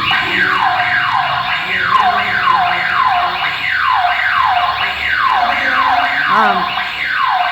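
Electronic burglar alarm siren sounding, a falling sweep repeated about twice a second, cutting off abruptly near the end. It is the alarm tripped by the door's sensor circuit being broken.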